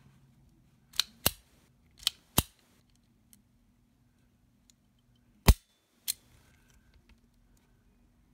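Taurus Model 85 .38 Special revolver's double-action trigger being pulled with no shot fired: sharp metallic clicks of the lockwork as the cylinder turns and locks and the hammer falls on its frame-mounted firing pin. The clicks come mostly in pairs, three times, and the loudest is about five and a half seconds in.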